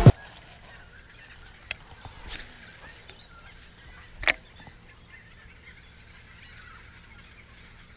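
Background music cuts off right at the start, leaving quiet outdoor ambience on the river with a couple of faint clicks and one short, sharp, louder sound about four seconds in.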